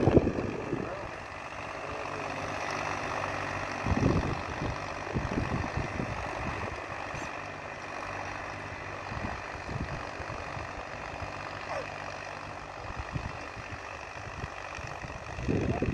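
Mahindra 265 tractor's three-cylinder diesel engine running steadily under heavy load while pulling a cultivator through the soil. A few gusts of wind hit the microphone, the strongest about four seconds in and again near the end.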